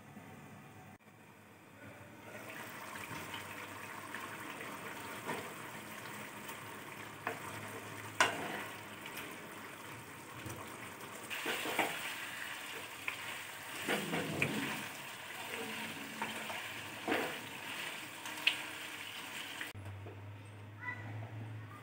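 Chicken curry sizzling and bubbling in an open nonstick pan while a spoon stirs it, with scattered clicks and scrapes of the spoon against the pan; the cooking water has mostly boiled down. The sizzling starts about two seconds in as the glass lid comes off and drops away near the end when the lid goes back on.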